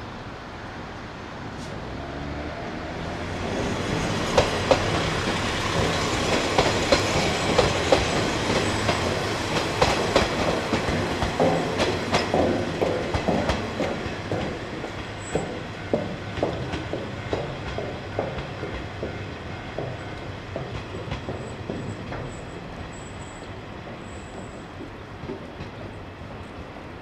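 KiHa 20 diesel railcar of the Mizushima Rinkai Railway running by, its wheels clicking over the rail joints in quick, uneven groups over the steady drone of its DMH17 diesel engine. It grows louder a few seconds in and slowly fades over the second half.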